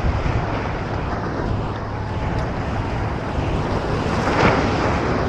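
Wind buffeting the microphone over the steady wash of ocean surf, swelling briefly about four seconds in.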